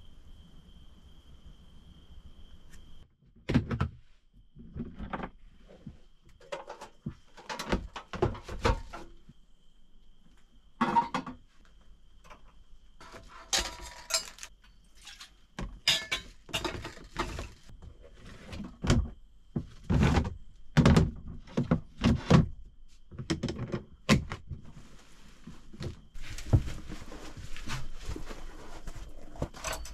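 Irregular knocks, clunks and clatter of camping cookware (pots, lids, a kettle) being packed into a plastic storage box and the box handled, with some rustling near the end.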